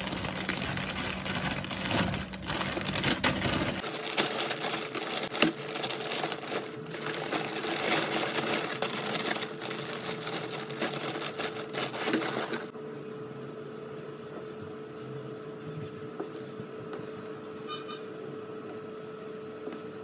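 A clear plastic bag crinkling and loose paper bedding rustling as the bedding is poured out and handled, fast-forwarded into a dense, rapid crackle. About two thirds of the way through it drops to a softer rustle over a faint steady hum.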